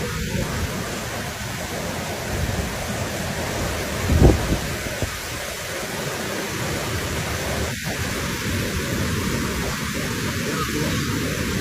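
Steady rushing of a flash-flood torrent, with one low thump about four seconds in.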